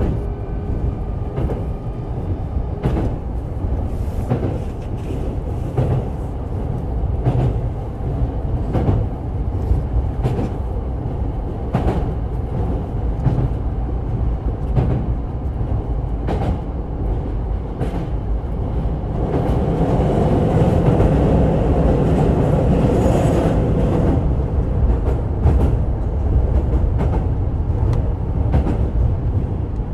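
Hankyu 8000 series electric train running at speed, heard from inside the car: a steady rumble of wheels and running gear, with a click from the wheels over a rail joint every second or two. The rumble swells louder for a few seconds past the midpoint, then settles back.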